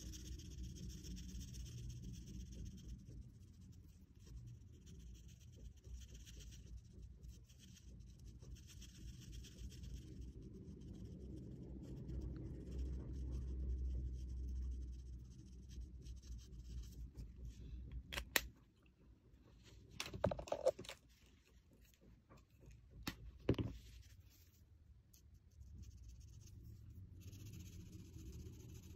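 Chisel tip of a Touch alcohol marker rubbing back and forth on paper, a faint scratchy scraping. About two-thirds through come a few sharp clicks as the brown marker is swapped for a blue one.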